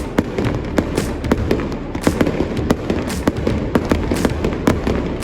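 Fireworks display: a dense run of sharp cracks and pops, several a second, over a steady low rumble.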